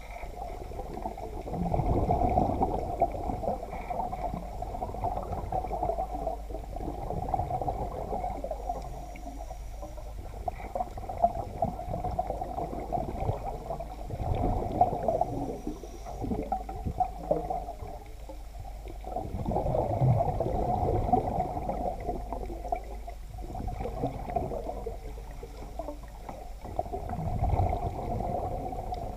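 Underwater water noise heard through a camera's waterproof housing: muffled gurgling and sloshing that swells and eases every few seconds.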